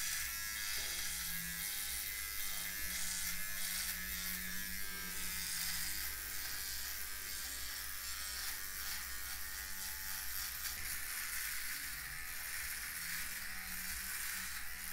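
Philips OneBlade electric trimmer buzzing steadily as it shaves stubble from the cheek and neck.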